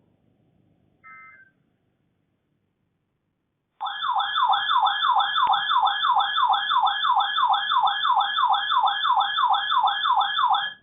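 A short burst of data tones, then, a couple of seconds later, a weather radio receiver's alert siren warbling loudly for about seven seconds, sweeping up and down about three times a second before cutting off. It is the alarm that announces an incoming warning broadcast.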